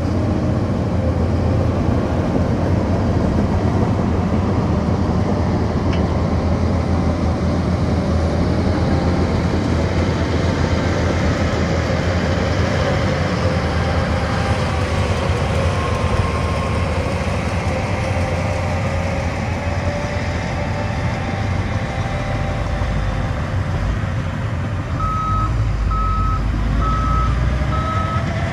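Heavy earthmoving machinery's engine running under load, with slowly shifting pitch. Near the end a reversing alarm starts beeping steadily, a little under two beeps a second.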